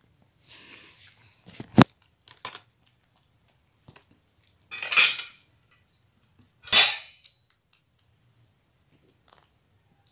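Metal cat food bowl clinking and scraping as cats eat from it: one sharp clink about two seconds in, then two short rattling scrapes, about five and seven seconds in.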